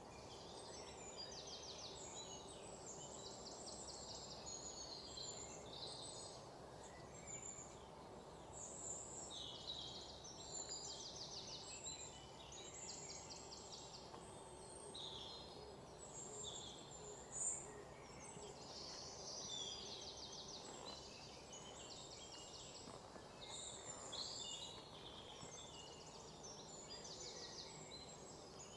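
Outdoor ambience: small birds chirping in quick, high, rapidly pulsed trills again and again over a faint steady background noise, with one sharp click about halfway through.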